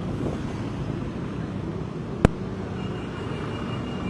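Outdoor urban background noise: a steady low rumble with one sharp click a little past the middle, and a faint high steady tone near the end.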